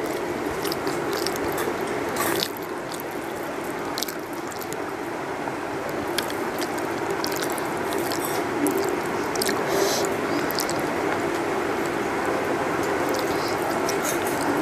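Eating rice by hand from a steel plate: fingers mixing and scooping food against the metal, with chewing and lip smacks, as many small irregular clicks and wet ticks over a steady background hum.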